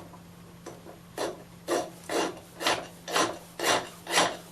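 Hand file stroking back and forth on a metal workpiece, about two rasping strokes a second starting about a second in, over a steady low hum.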